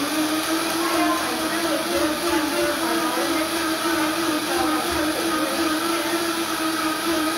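High-powered countertop blender running at full speed, blending a green protein smoothie of spinach and kale. Its motor whine holds steady and wavers slightly in pitch as the contents churn.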